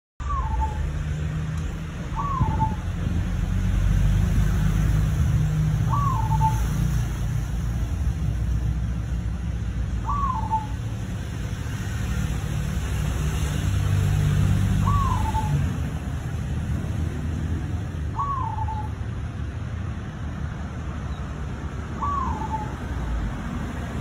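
Caged Bali zebra dove (perkutut) giving short coos, seven in all, a few seconds apart. Each coo is a quick rising-and-falling note with a lower note tacked on. Under them runs a steady low rumble.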